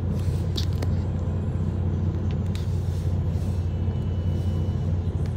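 MAN TGX 18.500's 12.4-litre inline-six diesel idling at standstill, heard from inside the cab as a steady, even low rumble.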